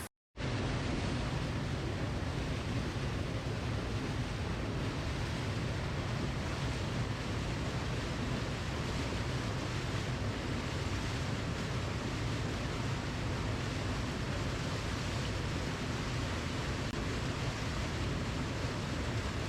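Flowing water rushing steadily with a deep, full sound. It starts after a split-second gap at the very beginning.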